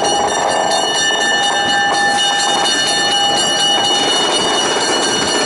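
A diesel switcher locomotive running and rolling slowly along the track, its engine and wheels making a steady rumble. Thin, steady, high metallic ringing tones run over it.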